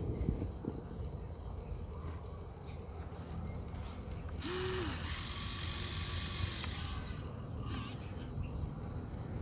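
Huina 1593 RC excavator's electric motors and gear drives whirring and clicking as the boom and bucket move, with a louder hissing stretch of about two seconds near the middle.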